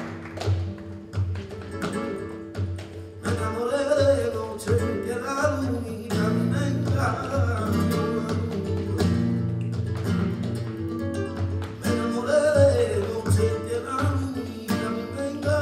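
Live flamenco soleá: a man singing over an acoustic flamenco guitar, with sharp hand-clapping (palmas) marking the rhythm. The singing comes in about three seconds in.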